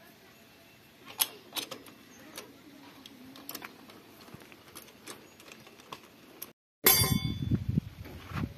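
Scattered light metallic clicks and clinks, a few a second at most, from work on metal parts. A brief dropout near the end, then a louder, rough low rumbling noise.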